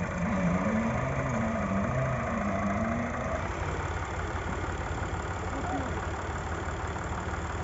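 Al-Ghazi (Fiat) tractor's diesel engine idling steadily, hitched to a sugarcane trolley stuck in mud.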